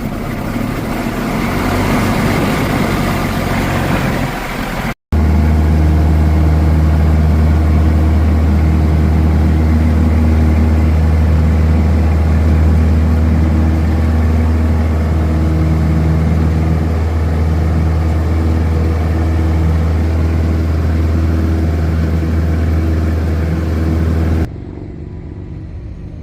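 Light aircraft's piston engine droning in the cockpit, heard across a few cut-together clips; for most of the time it is a loud, steady, deep drone, which drops away abruptly near the end.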